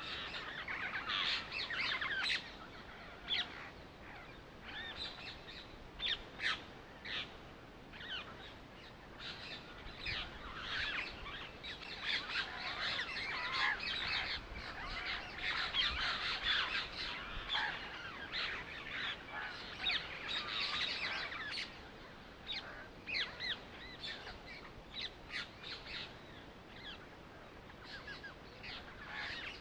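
Birds chirping and calling in a busy chorus of many short, quick notes, thinning out now and then.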